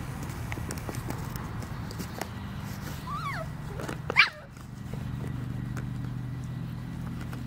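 A Kooikerhondje gives a short whine that rises and falls about three seconds in, then a single sharp yelp just after four seconds, the loudest sound, over a steady low hum.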